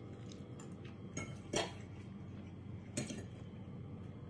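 Cutlery clinking against dinner plates during a meal: a few scattered light clinks, the loudest about one and a half seconds in, with a quiet room in between.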